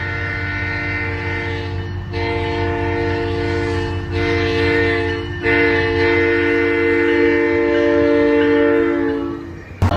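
SunRail cab car's multi-chime train horn sounding a chord in four blasts with brief gaps between them, the third short and the last the longest, fading out near the end.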